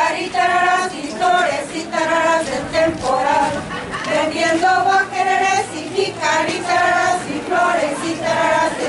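A group of women singing together in short sung phrases, their voices blended like a choir.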